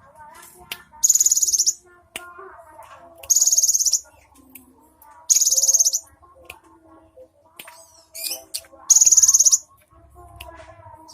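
Cinereous tit (gelatik batu) calling: a high, rapid buzzing trill of under a second, repeated four times about two seconds apart, with faint softer chirps in between.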